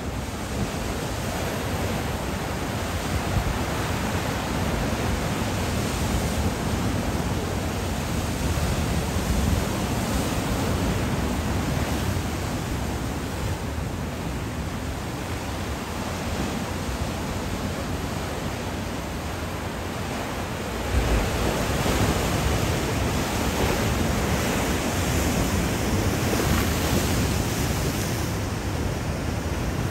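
Ocean surf washing below, a steady rushing noise that grows louder about two-thirds of the way through, with some wind on the microphone.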